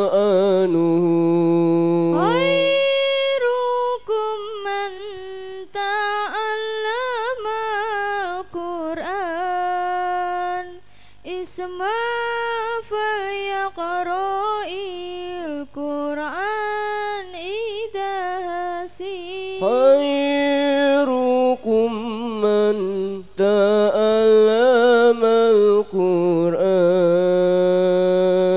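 A girl's voice chanting Arabic recitation through a microphone and PA, melodic, with long held, ornamented notes and brief breaths between phrases. A faint steady hum sits underneath.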